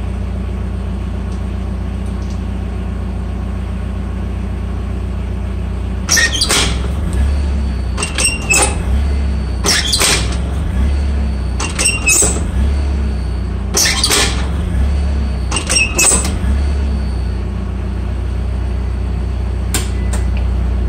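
Skid loader's diesel engine running steadily while the hydraulic quick-attach coupler is cycled, its locking pins clunking up and down several times, roughly every two seconds from about six seconds in. The pins moving freely show the repaired latch working.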